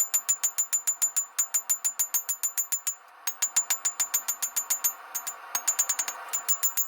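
Fast, even hammer blows on hot W2 steel being forged into a knife blade, about seven a second, each with a bright metallic ring. The run breaks off briefly a few times, over a steady hiss.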